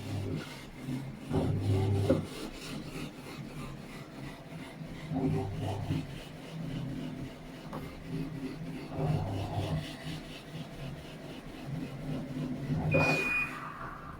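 Panasonic top-loading washing machine agitating: the motor drives the pulsator in short surges every three to four seconds, churning the load, with the lid closed and no U12 alarm stopping it. A short high beep sounds near the end.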